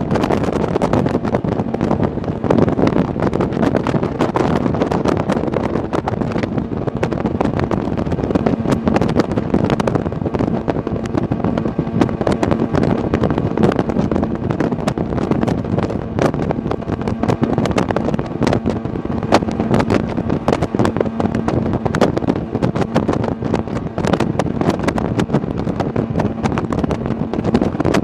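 Sea-Doo Speedster jet boat running steadily underway, with a faint steady engine tone beneath heavy wind buffeting on the microphone.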